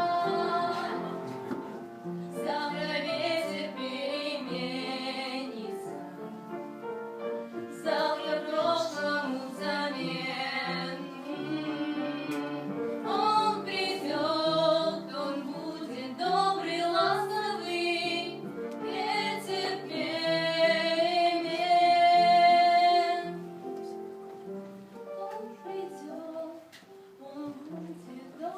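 Music: a woman singing in phrases over an instrumental accompaniment of held notes. The voice drops out near the end, leaving the accompaniment quieter.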